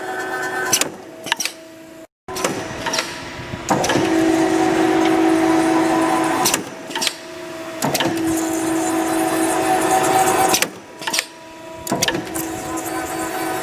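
Automatic wire straightening, cutting and thread-rolling machine running: a steady mechanical whine and hiss that swells for two to three seconds at a time as wire feeds through, with sharp clacks in the pauses between.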